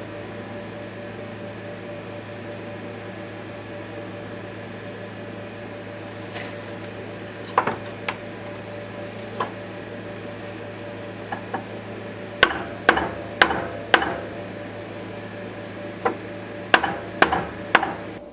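A dozen or so sharp hammer taps on a workpiece, several coming in quick runs in the second half, over the steady hum of a running workshop machine.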